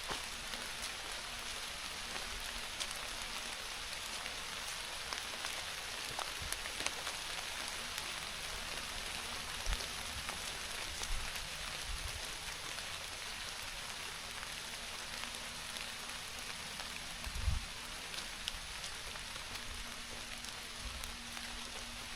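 Steady rain falling on leaves and the woodland floor, with scattered individual drops ticking, and a few soft low thumps from time to time.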